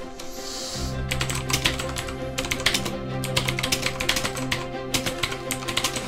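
Fast typing on a mechanical keyboard: a dense, irregular clatter of key clicks that starts about a second in, over background music.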